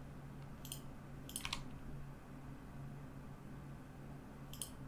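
A few scattered clicks from a computer keyboard and mouse, over a low, steady hum.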